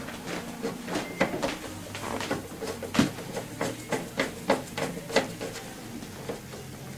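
Hand screwdriver clicking and tapping as it drives a screw into the plastic front fender of a scooter, in short irregular clicks with one louder knock about three seconds in.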